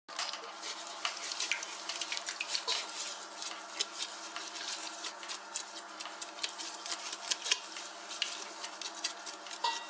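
Crushed Pilsner malt tipped from a paper sack and stirred with a paddle into the mash water in a stainless steel brewing kettle lined with a grain bag, while mashing in: wet, gritty stirring with many small sharp clicks, over a steady low hum.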